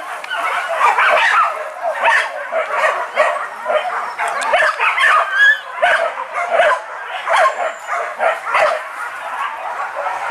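A pack of hunting dogs barking continuously, many dogs' voices overlapping without a break.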